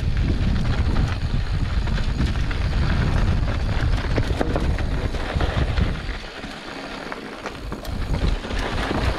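Wind buffeting the action camera's microphone as a mountain bike rolls along a rocky desert trail, with many small clicks and rattles from tyres and bike. The wind rumble eases about six seconds in, as if the bike slows, and picks up again near the end.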